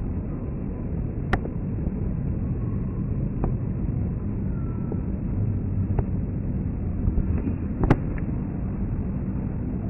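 Steady low rumble of a jet aircraft overhead, with a sharp click about a second in and another, louder one near the end, plus a couple of fainter ticks between.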